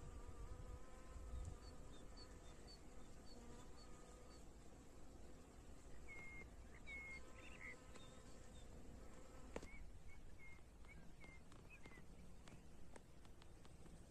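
Faint buzzing of a flying insect, steady through the first half, with two runs of short, high, evenly repeated chirps.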